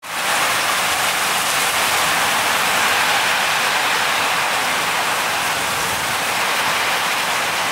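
Heavy downpour in a thunderstorm, a loud, steady, dense hiss of rain pouring onto the ground and standing water, heard from under a corrugated metal porch roof.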